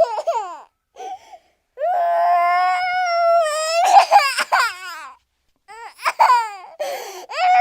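A cartoon character's voice crying: a few short falling cries, then a long high wail, then broken, sobbing cries that drop in pitch.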